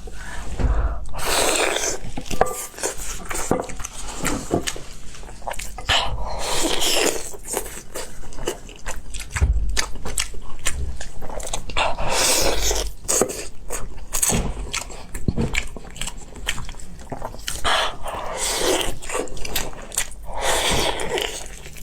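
Close-miked eating: chewing and biting with wet mouth clicks and smacks, coming in bursts of a second or two.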